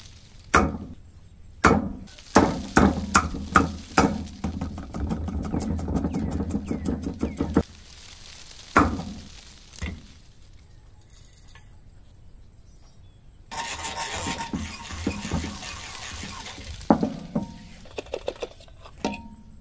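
A cleaver chopping a shallot on a thick wooden chopping block: a few separate chops, then quick rapid mincing for several seconds. Two thuds follow. Later a hand-cranked wooden burr grinder grinds for about three seconds, and a few clicks come near the end.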